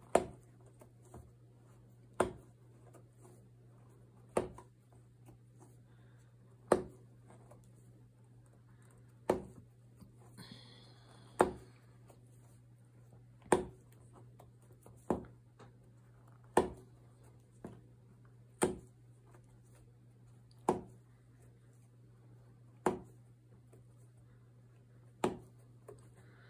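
Sharp clicks about every two seconds as a crochet hook lifts the loops one by one off the pegs of a potholder loom during the bind-off, with a soft rustle of the loops about ten seconds in, over a low steady hum.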